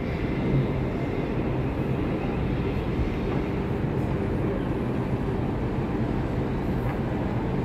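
Steady low rumble on the open deck of a cruise ship under way, with a faint hum running underneath.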